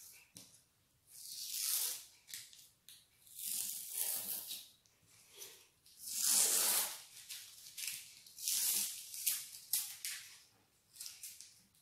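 Masking tape being peeled off the edges of a drawing paper: a series of rasping tearing pulls, about five longer ones each lasting under a second, with small crackles between.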